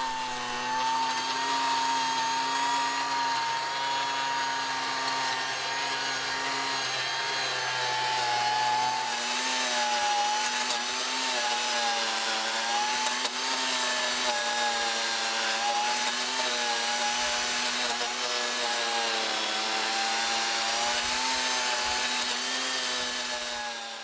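Chainsaw running at high revs as it carves into the oak trunk, its pitch dipping and wavering as it bites into the wood. The sound fades out near the end.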